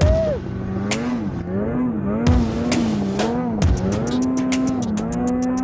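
Snowmobile engine under way in snow, its revs rising and falling again and again as the throttle is worked. Sharp knocks come every second or so, and a quick run of clicks follows near the end.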